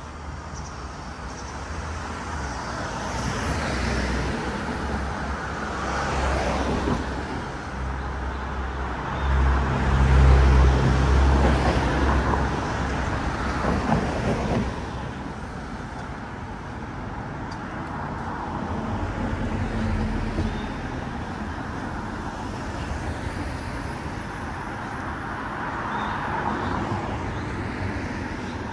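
Road traffic going by: a steady wash of passing vehicles, with one passing close and adding a deep low rumble, loudest about ten seconds in and fading by about fifteen seconds.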